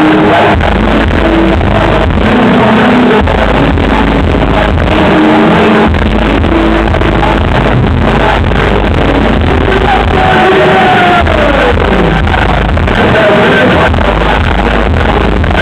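Live hip-hop set through a club PA: a loud bass-heavy beat with a vocalist on the microphone over it, and a long falling sweep about ten seconds in.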